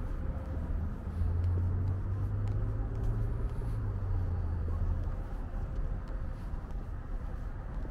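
Low engine rumble of a motor vehicle nearby, swelling about a second in and fading after about five seconds, over steady city background noise.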